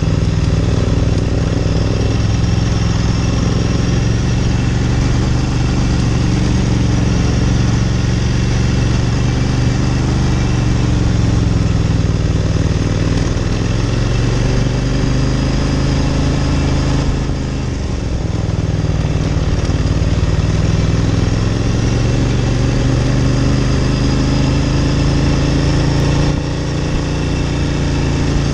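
Ducati Monster 900's air-cooled L-twin engine running under way, its pitch rising and falling with the throttle. The engine note drops off briefly about two-thirds through and again near the end.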